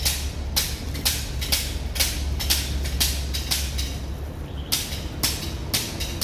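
Close-up crunching of fried krupuk crackers being chewed, in a steady rhythm of about two crunches a second with a brief pause about four seconds in, over a steady low hum.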